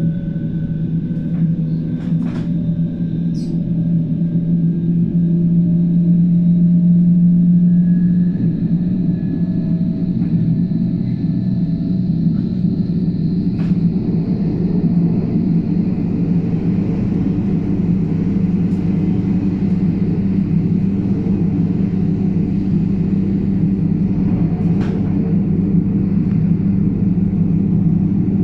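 Inside a DB class 474 S-Bahn electric multiple unit on the move: a steady low rumble of the running train, with a faint whine rising slowly in pitch and a few sharp clicks.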